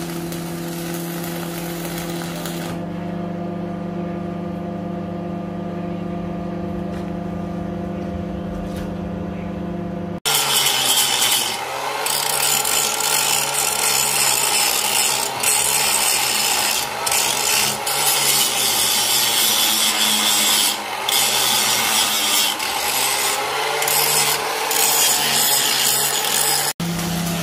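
Arc welding on a steel grill: a short crackle of the arc over a steady electrical hum, which runs on for about ten seconds. Then an electric angle grinder grinds the steel with a loud, harsh hiss for most of the rest, with a few brief dips, before the hum returns near the end.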